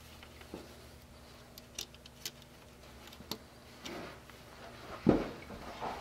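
Scattered small clicks and taps of hands handling a wire connector, with a louder knock about five seconds in.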